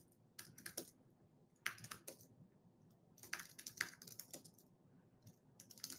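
Faint typing on a computer keyboard: short runs of keystrokes with pauses between them.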